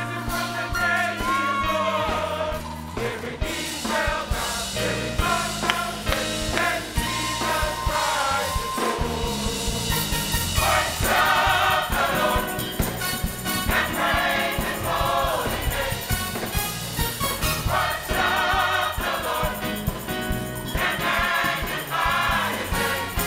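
Gospel choir singing with a live band: a drum kit with cymbals and a Yamaha Motif XS8 synthesizer keyboard. The cymbals grow brighter and denser about halfway through.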